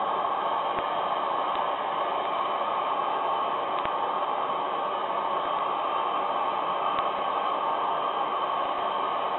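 Steady hiss of a handheld gas torch flame held on thin sheet steel, heating it so the solder paste can be tinned onto the surface.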